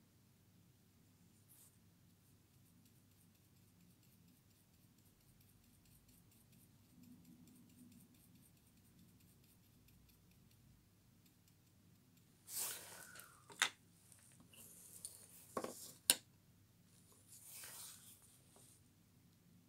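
Quiet faint room noise at first. Then, in the last third, a cluster of sharp clicks, clinks and short scraping swishes: a paintbrush being handled, rinsed, tapped and reloaded with fresh paint.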